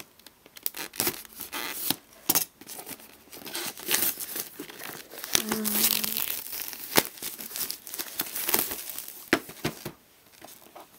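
Packaging of a boxed gift set being torn open by hand: irregular tearing and crinkling in bursts, with small knocks and clicks, busiest in the middle and dying down near the end.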